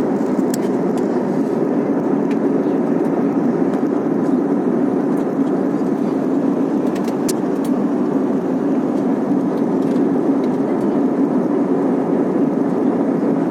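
Steady drone of jet engines and rushing air heard inside an airliner cabin in flight, a constant even roar with a low hum.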